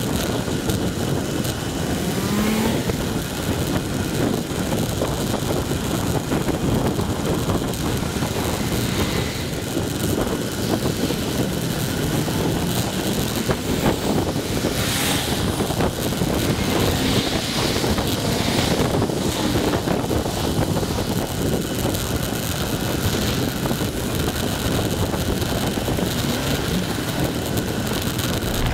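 Steady wind rush on the microphone of a camera riding on a moving bicycle, mixed with traffic noise; a car passes close by about halfway through.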